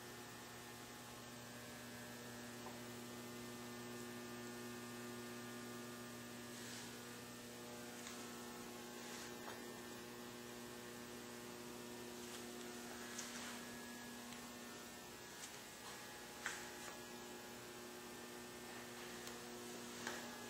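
Steady electrical mains hum, a low buzz of several evenly spaced tones that never changes. A few faint clicks and taps come in the last third.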